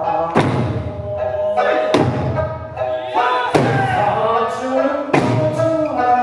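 Eisa drumming: a troupe striking hand-held taiko drums together in sharp unison beats, the strongest coming about every second and a half, over a sung Okinawan folk melody.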